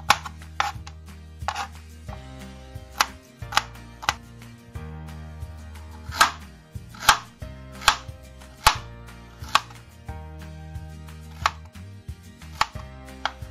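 Kitchen knife chopping garlic and slicing ginger on a plastic cutting board: irregular sharp knocks of the blade striking the board, roughly one a second.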